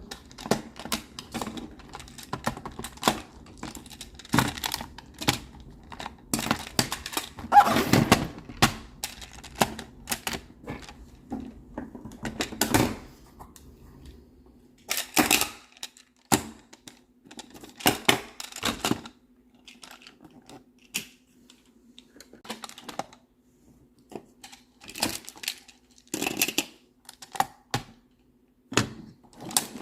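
Plastic magnetic building tiles clicking and clacking as they are handled and snapped together, in irregular taps with short pauses.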